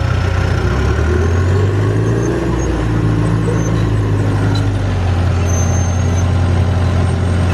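D5 bulldozer's diesel engine running loud and steady as the machine is put in drive, its note changing about a second in and then holding.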